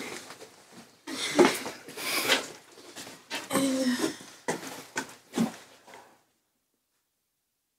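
Several people stifling laughter behind their hands: irregular snorts, wheezes and sharp breaths through the nose and mouth, with a few brief squeaky laughs. The sound cuts to dead silence about six seconds in.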